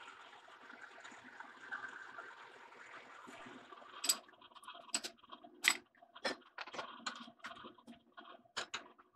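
Metal lathe running with a drill bit in the tailstock chuck boring into a spinning steel bar, a steady sound. About four seconds in it stops, and a run of sharp metallic clinks and knocks follows as tools are handled on the stopped lathe.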